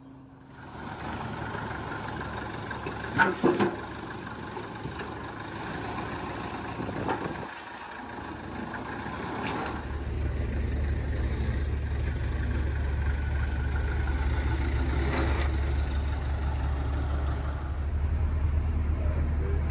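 Engine of a mobile crane running as it lifts and turns over a barge, a steady low drone that grows louder about halfway through. A few sharp knocks come about three seconds in.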